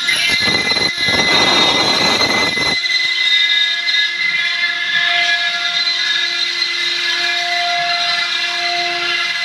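CNC stone-carving router running: a steady high spindle whine under a harsh cutting noise that stops abruptly about three seconds in, leaving the whine alone.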